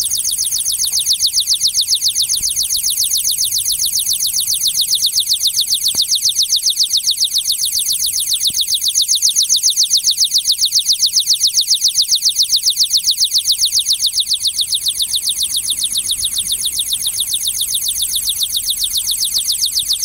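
Solar-powered ultrasonic animal repeller sounding its deterrent: a rapid, even train of high-pitched electronic chirps, about five a second. This is the audible part of its repelling signal, and it runs while the unit's red light is lit.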